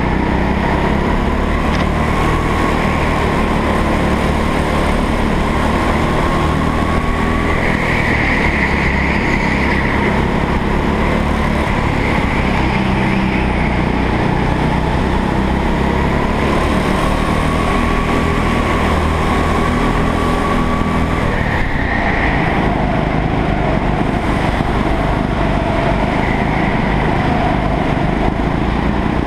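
A rental go-kart's engine running hard, heard from onboard. Its pitch climbs slowly along the straights and drops sharply about three-quarters of the way through as the kart slows for a corner, then starts to rise again.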